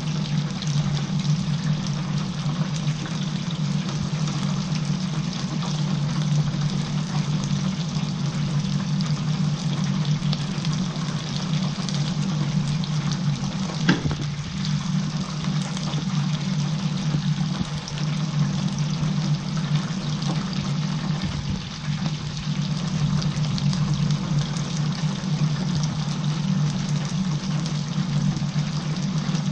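Battered chicken pieces deep-frying in a commercial stainless-steel fryer: the hot oil bubbles and sizzles steadily over a constant low hum, with one sharp click about halfway through.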